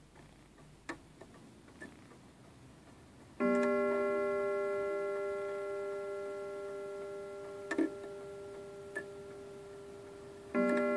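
Antique Lenzkirch mantel clock ticking faintly, then striking on its coiled wire gong about a third of the way in, the note ringing on and slowly fading. A couple of mechanism clicks follow, and a second gong strike comes near the end.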